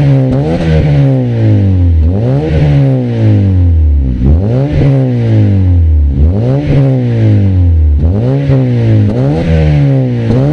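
Honda Civic FD exhaust, an axle-back with the resonator deleted and an HKS matte black muffler, as the parked car is revved. Each rev rises quickly in pitch and falls away more slowly, repeating about every two seconds.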